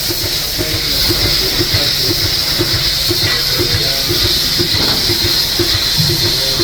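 Automatic milking robot running: a steady hiss with a fast, even pulsing beneath it, about three pulses a second.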